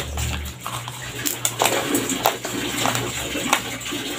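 Uncooked white rice being chewed: a dense run of irregular crunches and sharp cracks as the dry grains break between the teeth.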